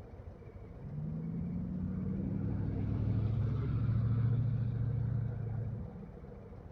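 A motor vehicle engine comes in about a second in, rises in pitch, runs louder for a few seconds and then fades away just before the end.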